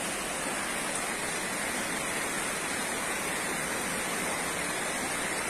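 Muddy floodwater rushing down a street: a steady, even rush of water.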